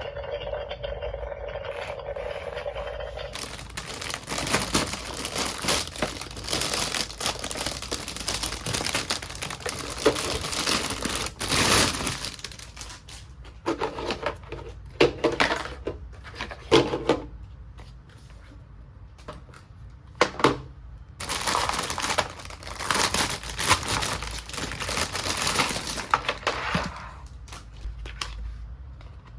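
Packaging from a toy kitchen set crinkling and tearing as it is unwrapped. Two long stretches of rustling are split by a run of sharp clicks and taps in the middle.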